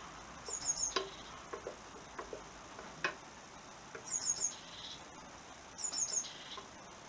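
A small bird chirping a quick run of three high notes, three times over, with a couple of light clicks and knocks from parts being handled.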